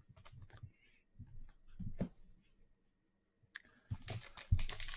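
Trading cards handled and set down with soft clicks and taps, then from about three and a half seconds in the steady crinkle of a card pack wrapper being picked up and handled.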